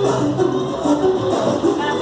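Upbeat music with singing.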